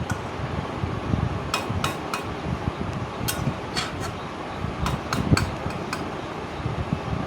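Metal spatula clinking and scraping against a kadai as chicken, potatoes and masala are stirred and fried, about a dozen sharp knocks in loose clusters in the middle few seconds, over a steady rushing background noise.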